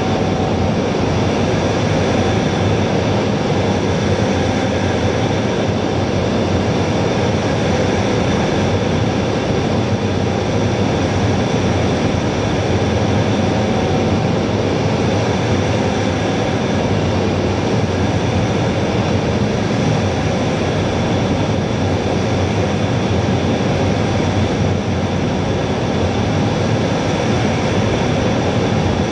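Steady in-cockpit noise of an A-10 in flight, a constant rush of airflow and jet-engine noise with a few faint steady whining tones through it.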